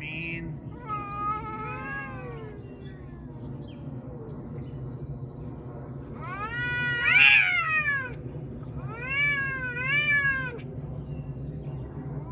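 Cats yowling in a face-off: three long, wavering, drawn-out caterwauls, the loudest about halfway through. These are the threat yowls of a standoff that may turn into a fight.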